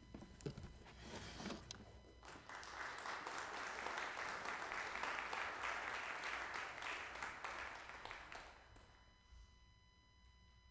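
Congregation applauding a flute solo: a few scattered claps, then full applause from about two seconds in that dies away after about six seconds.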